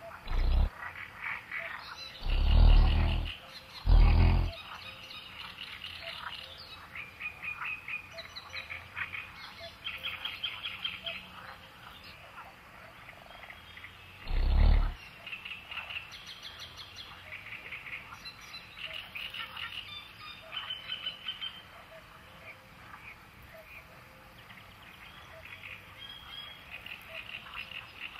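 Small birds twittering in quick runs of short, high repeated chirps. Loud low rushing bursts break in three times in the first five seconds and once about halfway.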